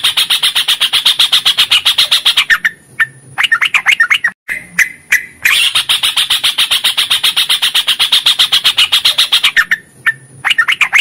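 Yellow-vented bulbul (trucukan) singing: a long, fast run of identical repeated notes lasting several seconds, then a few short warbled phrases. The sequence happens twice.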